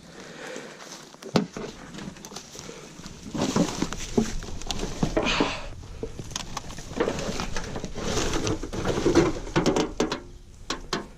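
Rustling and scuffing in dry leaf litter with irregular clicks and knocks.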